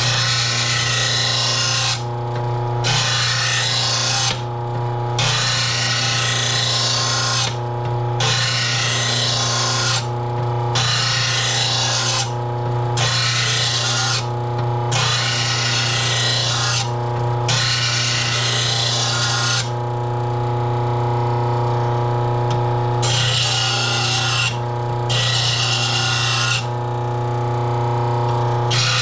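Electric grinder sharpening a steel lawn mower blade: a steady motor hum, with repeated grinding passes about two seconds long and short breaks between them.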